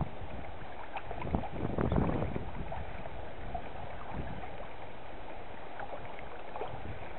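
Small waves lapping and slapping against a kayak's hull, with wind rumbling on the microphone; a louder slosh about two seconds in.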